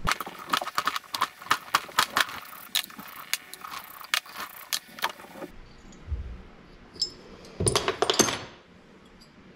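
Metal hand tools and sockets clinking and clattering on a workbench. Quick, irregular clicks run for about five seconds, then a short, louder clatter comes near the end.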